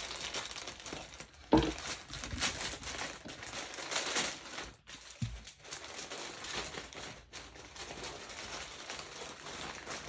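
Plastic shipping bag crinkling and rustling as it is handled, with a sharp thump about a second and a half in and a softer thud about halfway through.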